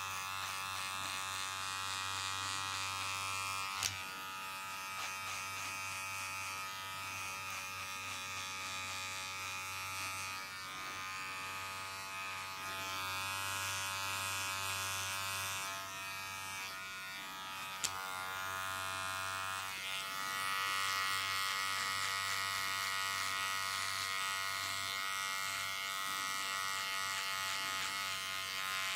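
Handheld electric barber appliance buzzing steadily with a low hum, broken by two sharp clicks, about four seconds in and near eighteen seconds.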